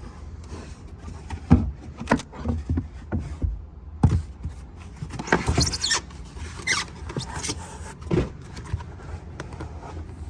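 Trunk floor panels and trim being handled: scattered knocks and clicks, with a squeak of plastic rubbing on plastic about halfway through.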